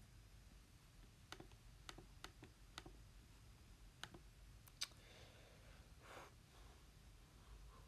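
Faint clicks of calculator keys being pressed, a few short irregular taps over several seconds.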